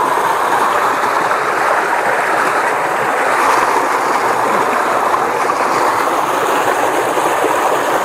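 Muddy stream water rushing steadily down a small cascade over an earth bank, a loud, even rush of water.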